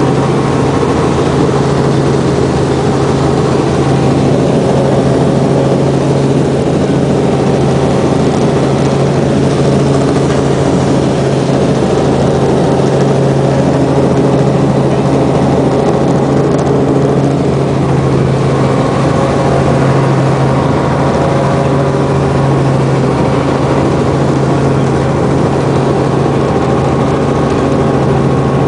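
Robinson R44 Clipper II helicopter heard from inside the cabin in flight: the steady drone of its piston engine and main rotor, with a strong low hum under a constant rush of noise.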